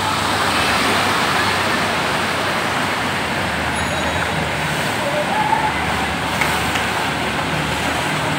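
Cars and auto-rickshaws driving through a deeply flooded street, their tyres churning and splashing the water in a steady, loud wash, with engines running faintly underneath.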